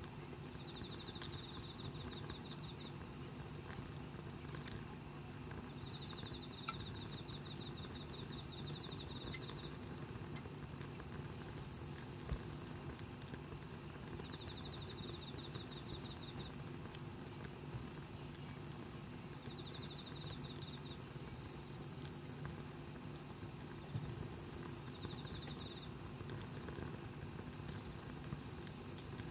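Insects calling outdoors: repeated high buzzing calls about every two seconds, alternating with slower pulsed trills, over a steady low background with a few faint crackling ticks from the campfire.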